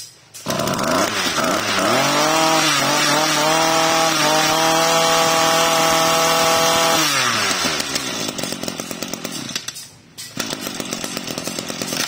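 Small two-stroke trimmer engine of a 26 cc Gilby 2620 brush cutter revving up about half a second in and held at high speed for about five seconds. It then drops back to a rough idle, with a brief dip near the end.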